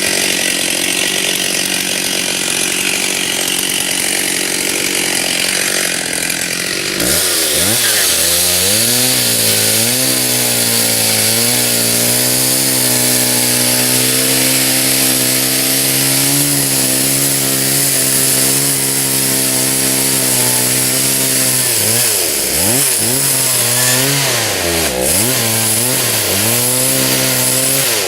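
Stihl chainsaw cutting into a white oak. It runs at high revs, then about seven seconds in drops sharply in pitch and holds a lower, loaded note with the hiss of the chain in the wood. Near the end the revs dip and recover several times.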